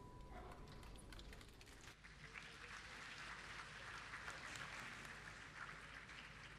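Faint audience applause, scattered clapping that swells about two seconds in, as the last ringing angklung note dies away at the very start.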